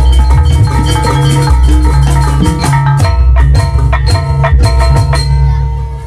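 Janger gamelan ensemble playing: struck metal mallet instruments ringing over a deep bass, with a run of sharp strikes in the second half, and the music dropping away at the very end.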